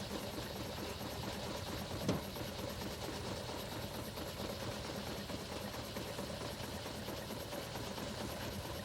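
Steam traction engine and belt-driven sawmill running steadily, a dense mechanical clatter, with one sharp knock about two seconds in.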